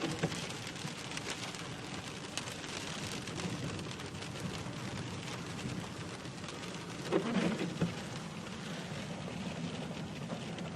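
Heavy rain falling, a steady hiss with many small drop ticks. A short murmur of a voice comes about seven seconds in.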